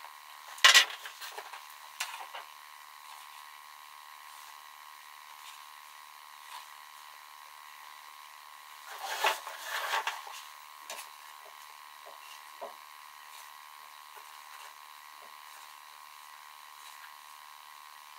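A few sharp knocks and taps over a faint steady hum: the loudest knock about a second in, another at about two seconds, and a short cluster about nine to ten seconds in.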